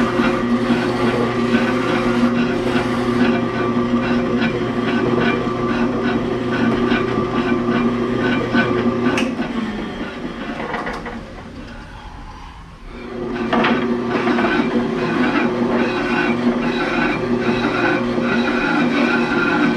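Vertical metal-cutting bandsaw running with a steady hum and a regular clicking rhythm. About nine seconds in the motor is switched off and winds down over a few seconds, then starts up again about thirteen seconds in as a thick 1-inch steel plate is fed into the blade.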